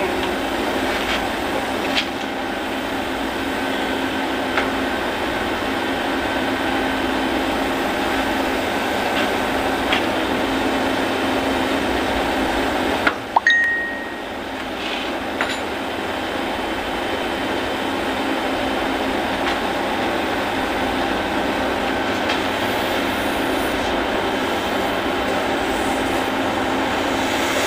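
Refrigerator compressor running with a steady mechanical hum, with a few light clicks, the loudest about 13 seconds in.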